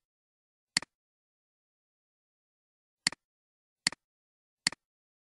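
Computer mouse clicking four times in otherwise near silence, each a sharp click followed by a softer release. One click comes near the start and three come later, about 0.8 s apart.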